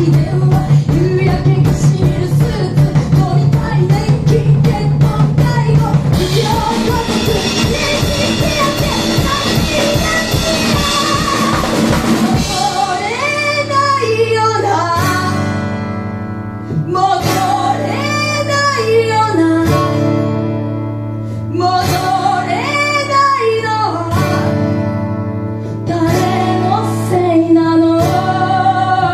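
Live rock band playing: fast, dense drumming with crashing cymbals, then about twelve seconds in a woman starts singing over sustained electric guitar chords as the drums drop back.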